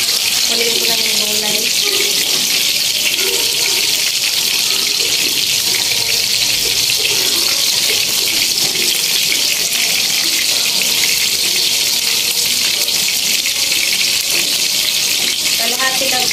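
A steady, loud hiss of broth boiling in the wok of pancit on the gas stove, as soaked rice noodles are dropped into it. Faint voices can be heard underneath.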